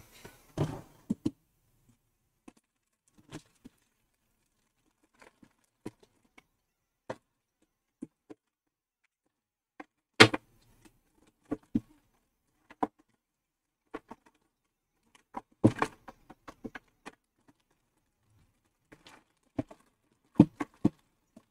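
Scattered short clicks and light knocks of small hard objects being handled, with a few louder knocks about ten seconds in, around sixteen seconds and near the end.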